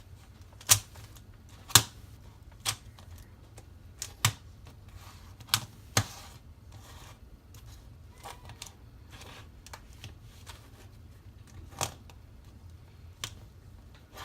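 A Rubik's cube being turned with the feet: sharp plastic clicks of the layers snapping round, about ten of them at uneven intervals, with a long stretch of only faint handling noise in the middle.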